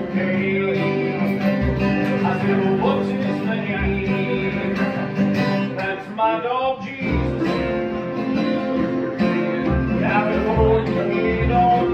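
Bluegrass jam band playing a song on acoustic string instruments.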